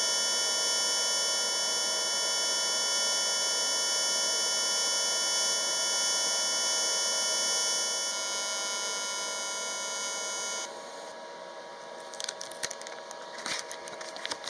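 Jasic TIG 200P welding arc on stainless steel in pulsed DC at 200 Hz (80 A peak, 30 A background), giving a steady loud buzz at the pulse rate. The arc cuts off about ten seconds in, followed by a few light clicks and knocks.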